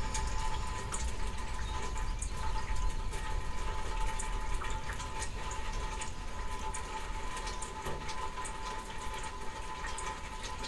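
Steady rain falling in a summer thunderstorm, with scattered drips landing sharply close by.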